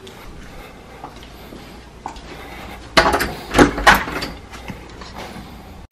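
Interior door being opened by its round knob: a sharp latch clack about three seconds in, then a louder clatter half a second later as the door swings, after a few seconds of quiet rustling.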